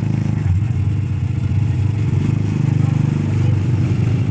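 ATV engine running steadily, a low, dense engine tone with small rises and dips in pitch.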